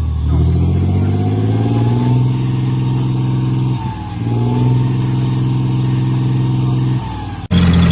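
Tank engine revving up and running under load, with a faint whine riding above the engine note. Its pitch rises over the first two seconds, then holds steady, with a brief dip about four seconds in. It drops just before an abrupt cut near the end, where a louder engine sound starts.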